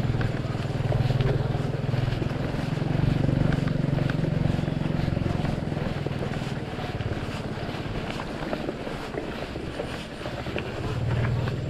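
Wind buffeting the microphone during a bike ride outdoors, with a steady low engine-like hum that swells and fades and fine ticking scattered throughout.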